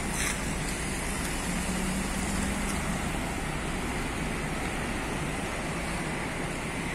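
Steady city street traffic noise, a low even rumble, with a vehicle engine's hum standing out briefly about two seconds in.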